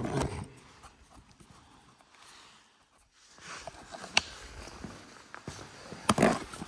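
Knocks from a Kingsong S22 Pro electric unicycle worked up and down on its suspension against a concrete floor: a sharp knock about four seconds in and a louder thump about six seconds in.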